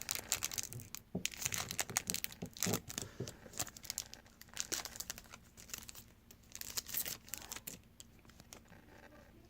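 Crinkling and rustling from a trading-card pack and its cards being handled: dense for the first few seconds, then sparser and fainter.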